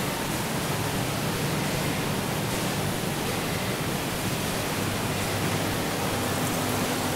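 Snack-factory production machinery running: a steady, even whooshing din from the corn-puff line's conveyors and drums, with a faint low hum coming in near the end.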